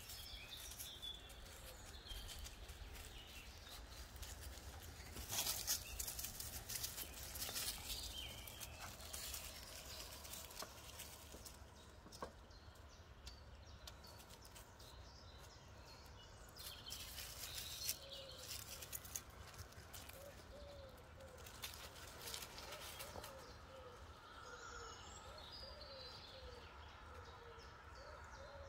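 Faint outdoor garden ambience: birds chirping off and on, with brief rustles of dry leaves underfoot as whippet puppies move about and sniff.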